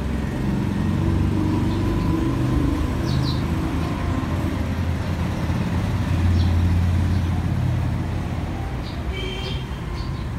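Honda XRM 125's single-cylinder four-stroke engine running at idle, a steady low exhaust note from the chrome muffler.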